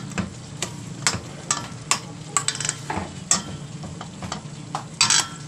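A metal spoon stirring vegetables in a stainless steel pot: irregular scrapes and knocks against the pot, the loudest cluster about five seconds in, over a light sizzle from the low-heat pan.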